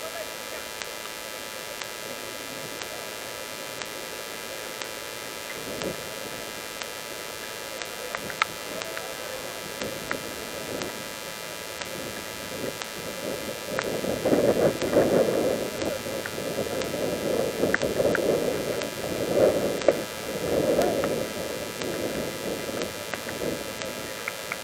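Steady static hiss with faint steady electrical whine tones. From about halfway in, louder irregular muffled sounds come and go for several seconds, with a few faint clicks.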